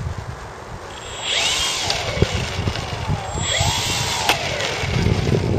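RC model airplane motor and propeller revved up twice on the ground, each time a whine of about a second that rises and falls in pitch. Wind rumbles on the microphone underneath.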